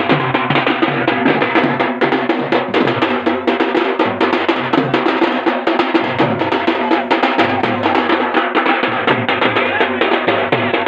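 Folk drum band: a rope-tensioned dhol and a small side drum played with two sticks beat a fast, dense rhythm, with a tune of held notes underneath.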